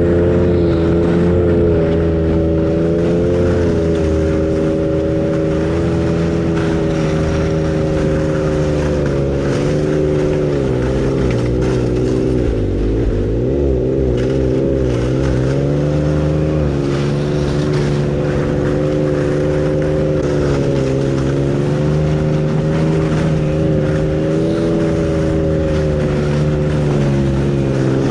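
Ski-Doo Expedition snowmobile engine running steadily under load while riding a trail of hard snow, its pitch dipping and recovering a few times as the throttle eases and opens.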